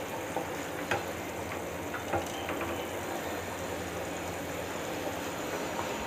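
Pot of moong dal boiling in water, a steady bubbling hiss with a few small pops in the first few seconds.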